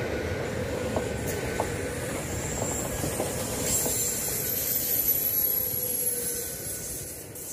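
Škoda InterPanter electric multiple unit passing on the track: a steady rumble of wheels on rail with a few sharp clicks and a thin high whine. The sound fades as the last car goes by, about six and a half seconds in.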